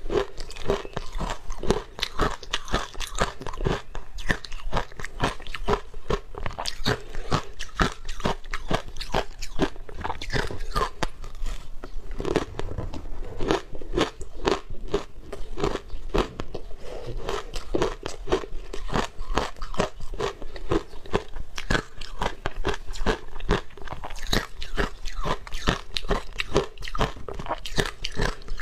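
Frozen matcha shaved ice being bitten and chewed close to the microphone: a dense, continuous crunching and crackling of ice breaking between the teeth.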